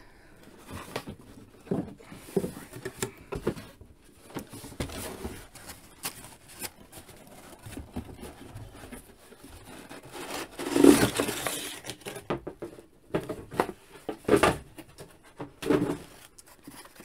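Cardboard toy box and its packing being handled: scattered rustling, scraping and small knocks, with a louder rustle about eleven seconds in.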